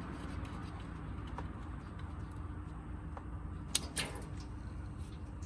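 A few faint ticks, then two sharp metallic clicks close together about four seconds in, from a hand tool working at the transfer case drain plug, over a steady low workshop hum.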